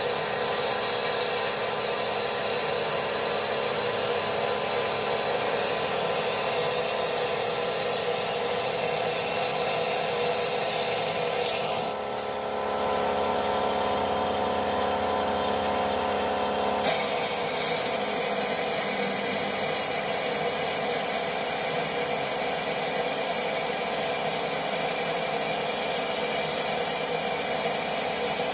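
Vapor blasting gun spraying a wet abrasive stream with compressed air, a steady loud hiss, as engine parts are blast-cleaned. About twelve seconds in, the hiss turns duller for around five seconds, then returns to its first sound.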